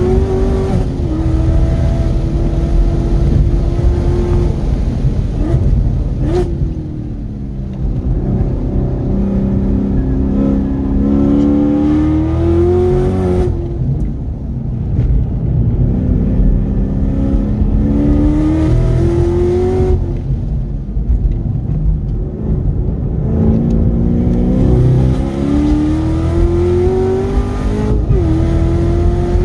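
The supercharged 6.2 L V8 of a 2018 Chevrolet Camaro ZL1 1LE, heard from inside the cabin on a track lap. The revs climb hard several times and fall away as the car brakes into corners and accelerates out again, with steady road and tyre rumble underneath.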